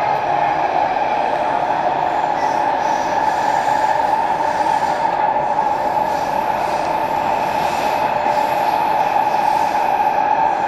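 Steady, loud running noise inside a 1989-built Vagonmash 81-717/714 (S81) metro car in motion, with wheels on rail and traction motors. A faint, high-pitched squeal comes in about six seconds in and fades near the end.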